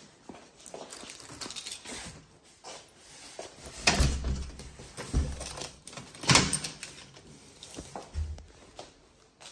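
Wooden door being handled at the entrance along with clothing rustle and shoe sounds on a tiled floor: scattered light knocks and rustles, with two sharp louder knocks about four seconds in and again a couple of seconds later.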